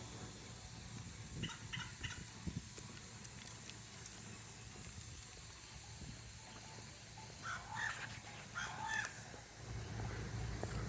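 Crow calling: a few short, odd-sounding calls about a second and a half in, then another burst of calls near the end.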